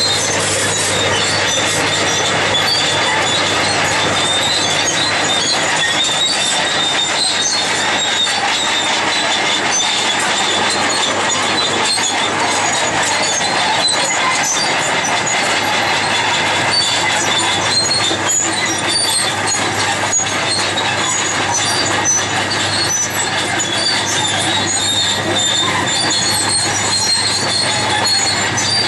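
Caterpillar D6 crawler bulldozer working a road: its diesel engine runs steadily under the clank of the steel tracks, with a high squeal from the running gear.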